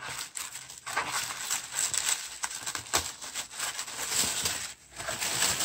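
Tissue paper rustling and crinkling as it is unfolded by hand, a busy run of crackles with a brief lull near the end.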